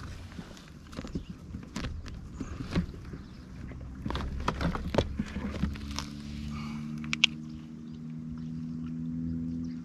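Small clicks and knocks of fishing gear being handled by hand, then from about six seconds in a steady low hum of several held tones.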